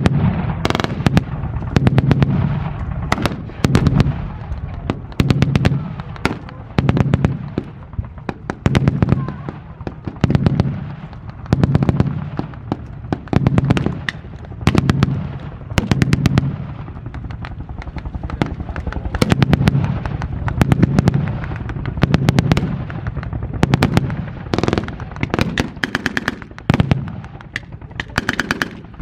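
Blank-firing machine guns and rifles in a mock battle: short bursts of automatic fire come about every second or so, with single shots scattered between them and a brief lull in the second half.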